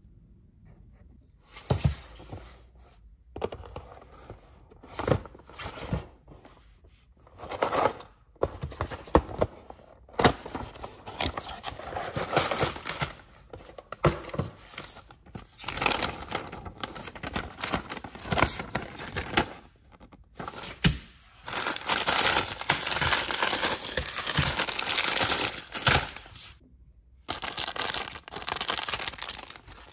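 Clear plastic packaging bags crinkling and being torn open by hand, in short bursts with small clicks at first, then a long stretch of continuous crinkling.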